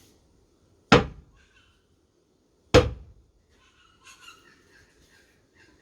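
Two solid wooden knocks, about two seconds apart, as a new spotted gum handle is driven down into the head of a block-splitting maul to seat it.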